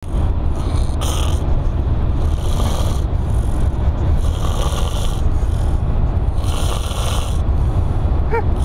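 A man snoring loudly, a rasping breath swelling about every two seconds over a steady low rumble, with a brief high whistling squeak near the end.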